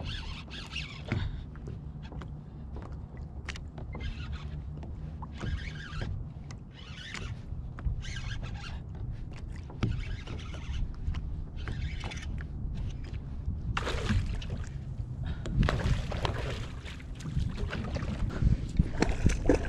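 Water and wind noise around a fishing kayak at sea while a hooked fish is being brought in, with scattered clicks and knocks of gear handling. The noise grows louder and busier in the last few seconds.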